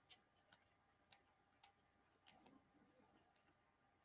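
Near silence with faint, irregular clicks, about one every half second to second, as trading cards are flipped through by hand.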